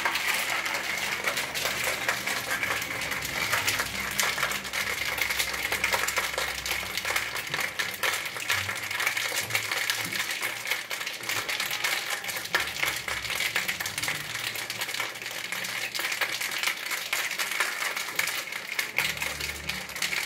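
A cocktail shaker filled to the top being shaken hard, its contents rattling rapidly and steadily against the metal.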